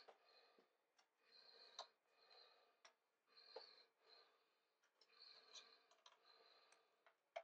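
Faint clicks and scraping as a pry tool works along the edge of a laptop's bottom cover, releasing its plastic retaining clips one after another.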